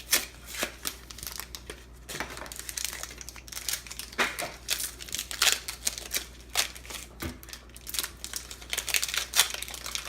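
Foil Pokémon TCG booster packs being torn open and crinkled by hand, a run of short, sharp crackles and rustles.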